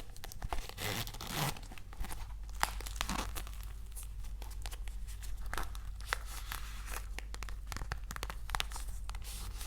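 Packaging being crinkled and handled close to the microphone, with irregular crackles and small tearing sounds over a faint low hum.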